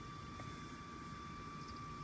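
Steady low rumble and a thin constant hum, the background noise of a car cabin, with a few faint high ticks near the end.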